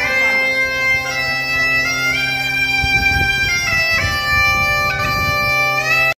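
Bagpipe playing a melody over a steady, unchanging drone; it stops abruptly at the end.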